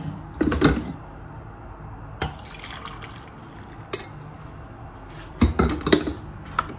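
Coffee poured from a glass drip-coffee-maker carafe into a glass mug, with a few clinks of spoon and glass near the start. Near the end come several knocks as the carafe is set back on the coffee maker.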